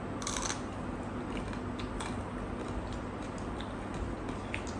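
Quiet eating by hand: chewing and mouth sounds with scattered small clicks of fingers working rice and fish curry on plates, and one slightly louder noise shortly after the start, over a steady low hum.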